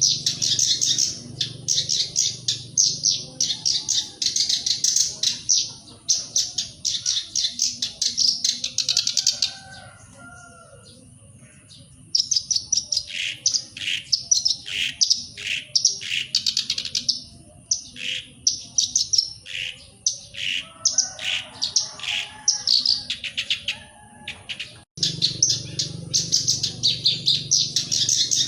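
Black-browed reed warbler singing: fast, chattering runs of rapid high notes. About ten seconds in there is a short pause, and then the song turns to more spaced-out separate notes. Near the end the dense chattering comes back after an abrupt cut.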